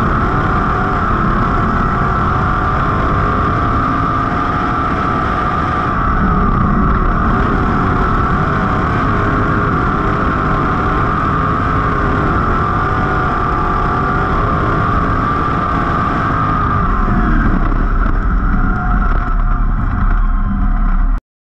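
Onboard audio of a 305 sprint car's V8 engine running continuously on track, its pitch wavering with the throttle. It cuts off suddenly at the very end.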